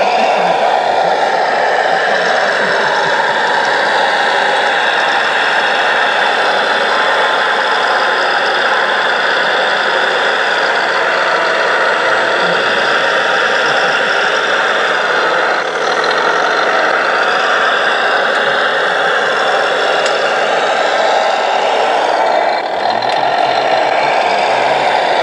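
Simulated diesel engine sound from the sound module of a radio-controlled Volvo L250G wheel loader, running steadily through a small speaker with little deep bass.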